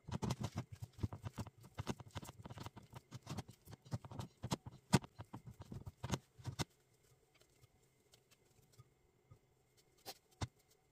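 Hands mixing and squeezing pizza dough in a glass bowl: a quick, irregular run of soft pats, squishes and taps for about six and a half seconds, then quiet with a couple of isolated taps near the end.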